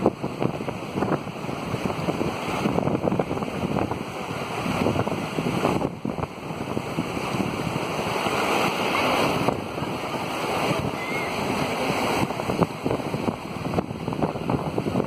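Fast mountain river rushing over rocks in whitewater, a steady wash of water noise, with splashing from people wading through the current.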